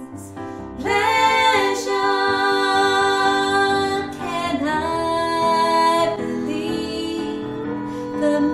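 Two women singing a slow song together, holding long notes, over a piano accompaniment.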